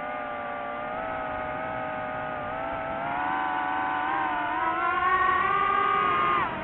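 DJI FPV drone's motors and propellers whining in flight. The pitch climbs and the sound grows louder over the second half as the drone throttles up, then the pitch drops sharply near the end.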